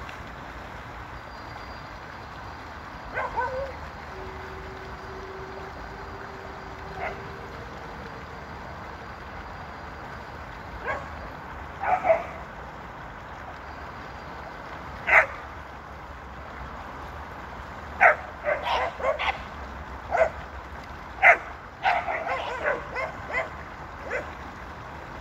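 A dog barking: single barks a few seconds apart, then quick runs of barks and yips in the second half, the loudest about fifteen, eighteen and twenty-one seconds in, over a steady background hiss.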